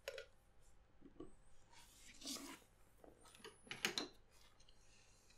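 Light handling sounds of phones on a wooden desk: a few soft knocks and rubs, with the loudest cluster of sharp clicks about four seconds in.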